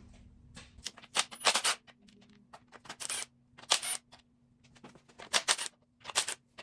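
Irregular sharp clicks and clinks of hand tools against metal, coming in several short clusters.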